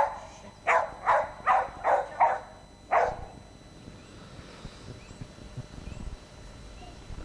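Small black dog barking, a quick run of about seven barks in the first three seconds, then it stops.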